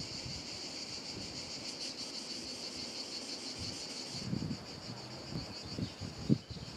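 Insects chirring in a steady, high, fast-pulsing drone. A few soft low thumps come in the second half, one sharper near the end.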